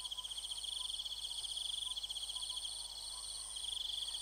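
Insects trilling steadily, a dense high-pitched chorus of fast pulsing chirrs in several layers, one of which cuts out briefly about three seconds in and comes back.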